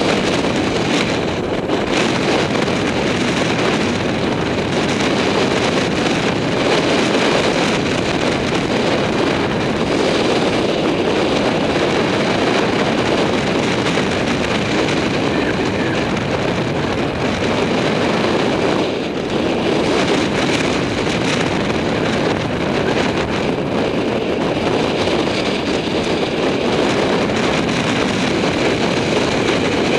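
Wind rushing over the microphone of a bicycle-mounted camera at descending speed, mixed with tyre noise on rough asphalt: a loud, steady rushing noise.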